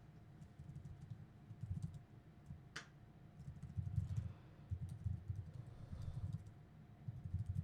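Typing on a computer keyboard: irregular runs of muffled keystrokes, with one sharper click a little under three seconds in.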